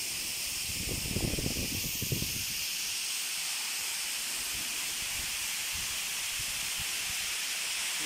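Steady rushing hiss of a waterfall, with a low rumble of about a second and a half near the start.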